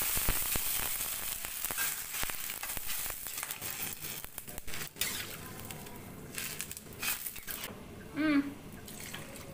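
Water poured into a hot oiled wok of fried tempeh and tofu, hissing and sizzling loudly at first and dying down over several seconds. A metal spatula scrapes and taps against the wok as the mixture is stirred.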